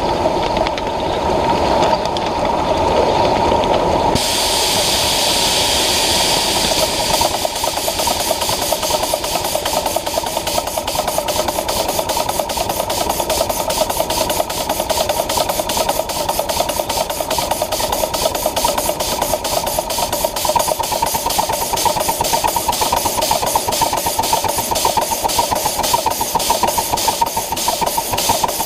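Ride-on live-steam Pacific (4-6-2) locomotive working. A burst of steam hiss starts about four seconds in, then the locomotive settles into a fast, even beat of exhaust chuffs.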